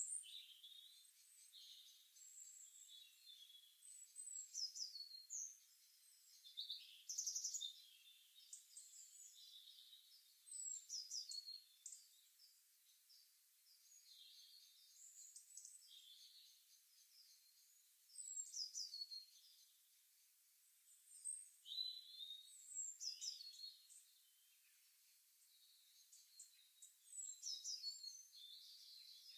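Faint birdsong: short phrases of high chirps and quick falling whistles, repeated every few seconds.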